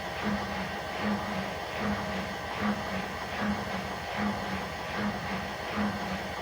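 Washing machine during a spin cycle, its drum turning with a squeak that repeats evenly about every 0.8 seconds.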